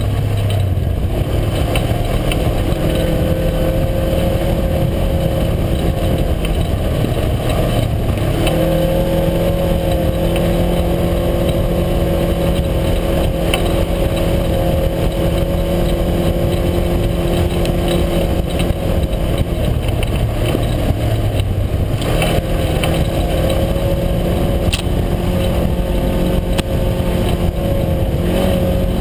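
Side-by-side UTV's engine running at a steady pitch under way, easing off briefly twice, about seven and twenty seconds in, then picking back up to the same pitch.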